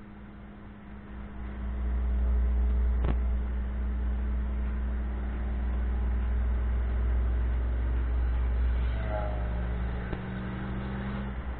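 Pontiac Trans Am's LT1 5.7-litre V8 engine and exhaust heard from inside the car, the low rumble swelling about a second and a half in as the car pulls, holding steady, then easing back near the end. A single sharp click about three seconds in.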